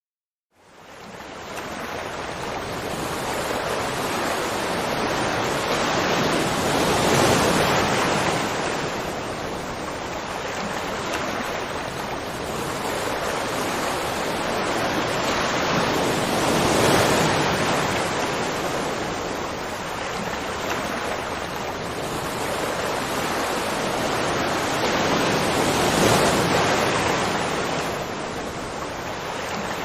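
Rushing water, a dense, steady noise that fades in about half a second in and then swells and eases slowly about every nine or ten seconds.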